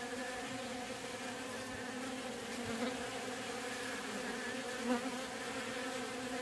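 Honey bees buzzing in a steady, pitched hum, a dense crowd of them working at the hive entrance over spilled honey, with one bee's buzz briefly louder about five seconds in.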